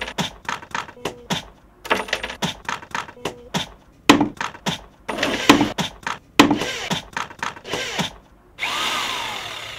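Workshop tool noise: a quick, uneven run of knocks and clanks of hand tools on wood and metal, with denser noisy stretches in the middle. Near the end a power tool runs steadily for about a second and fades.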